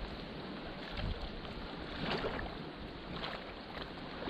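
Steady wash of sea water along a rocky shore, with a few faint knocks.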